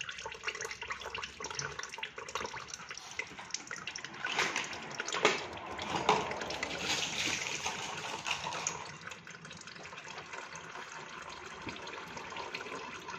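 Used engine oil trickling from a loosened spin-on oil filter into a drain pan, a steady run of liquid that grows busier and louder from about four seconds in, with a few sharp strokes, then eases off.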